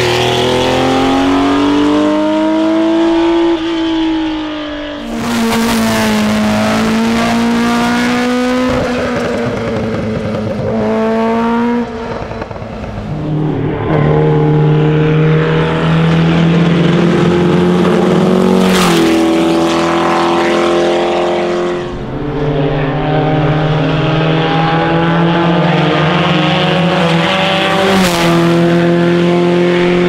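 Classic competition car engines at full throttle up a hillclimb, the pitch climbing and then dropping at each upshift several times over, with a few sharp cracks at some of the shifts.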